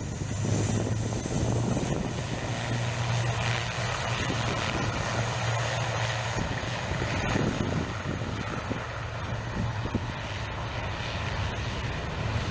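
ATR 72-600 turboprop's twin Pratt & Whitney PW127 engines running, a steady low propeller drone over a broad engine rush.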